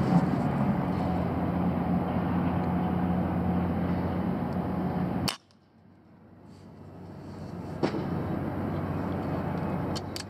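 A single shot from a pre-charged pneumatic air rifle about five seconds in: one sharp crack, after which the background drops away and slowly comes back. Before the shot a steady low hum underlies everything, and a few lighter clicks follow later.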